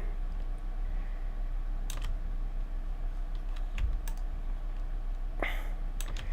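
A few scattered key presses on a computer keyboard, sharp single clicks a second or two apart, over a steady low electrical hum.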